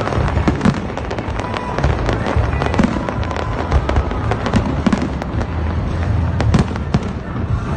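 Fireworks display: a rapid, irregular string of bangs and crackling shell bursts over a continuous deep rumble of echoing detonations.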